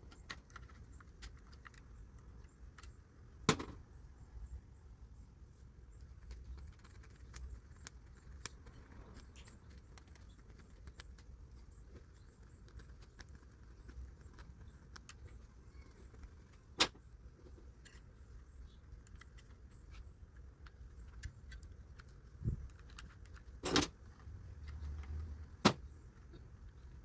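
Small metal switch contacts being handled and sanded clean, faint scraping with several sharp clicks as the pieces are picked up, set down or pressed back into place. The contacts are scorched, and the sanding is meant to cure the washer not starting on its high-speed cycle.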